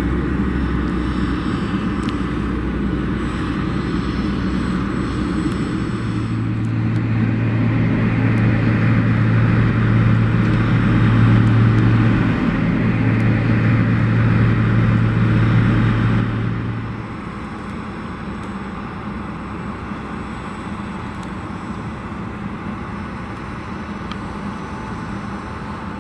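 Steady engine noise of motor vehicles on an airport apron, with a low steady hum. The hum and a hiss swell from about a quarter of the way in, then drop off suddenly about two-thirds of the way through, leaving a quieter rumble.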